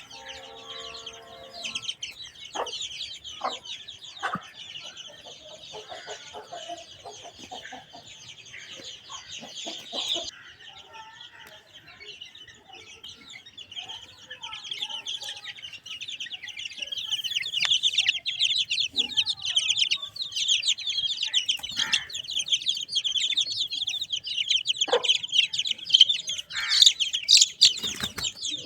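A brood of chicks cheeping steadily in a dense chorus of high peeps, louder from about halfway through, with an Aseel hen giving low clucks now and then.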